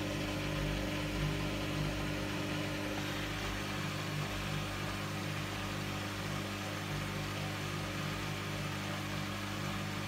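Hoover front-loading washing machine's motor running steadily with a constant hum as the drum turns the wet laundry at tumbling speed. The load is still unbalanced, so the final spin has not started.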